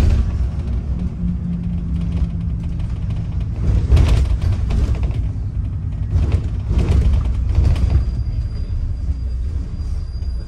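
Double-decker bus on the move, heard from inside the upper deck: steady low engine and road noise, with a couple of louder surges partway through.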